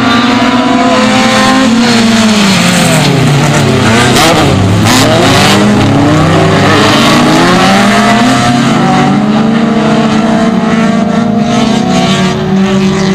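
A pack of autocross race cars at full racing speed on a dirt track, several engines heard at once, each revving up and dropping back through the gears. Their pitches cross each other as the pack passes about four to five seconds in.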